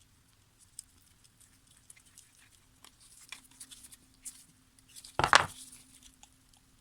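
Small metal clicks and scrapes from handling a pair of Felco No. 2 secateurs and bench tools, with one short, louder clatter about five seconds in.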